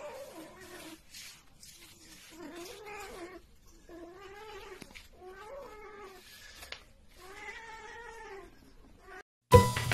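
A ginger cat yowling: about five drawn-out cries, each close to a second long and rising then falling in pitch, with short pauses between them. Loud music cuts in near the end.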